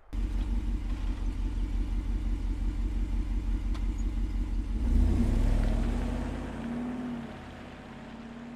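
Jeep Wrangler Rubicon 392's 6.4-litre HEMI V8 exhaust idling with a steady low pulse, then revved once about five seconds in, rising and falling back to a quieter idle.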